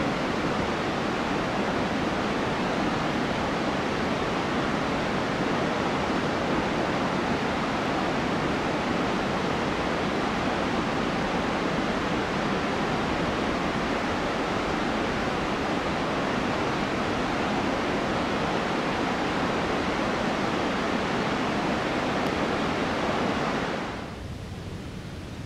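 Steady rushing of a mountain waterfall. Near the end it drops sharply to a quieter hiss.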